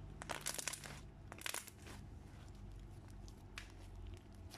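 Thick green slime, mixed with foam chunks and fishbowl beads, being squished and stretched by hand: it crackles and crunches in two dense bursts within the first two seconds, then gives a few lone clicks.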